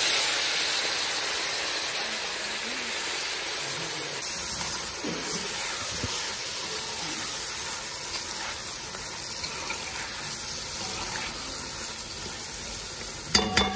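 Water poured into a hot cast-iron pot of seasoned potato pieces, gushing and sizzling, loudest at first and then fading as the potatoes are stirred with a metal spoon. There are a few sharp knocks near the end.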